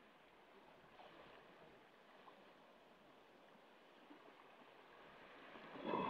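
Small sea waves washing faintly over a pebble beach, with a few light ticks of stones. Near the end a wave builds and breaks, splashing against the stones, the loudest sound.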